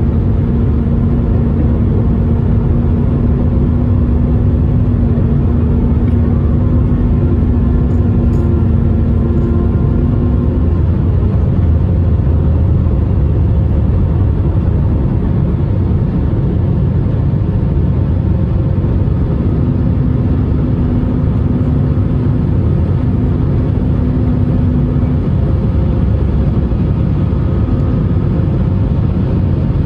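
Airbus A319 at takeoff thrust, heard from the cabin over the wing: the jet engines' loud, steady rush through lift-off and the climb-out. A low steady hum sits under it for about the first ten seconds and returns briefly around twenty seconds in.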